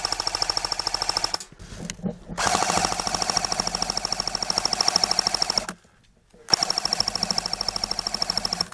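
Airsoft electric gun firing full-auto close by: three long bursts of rapid, evenly spaced shots, each with the gearbox whine running under it, the first ending about a second and a half in, the last ending just before the end.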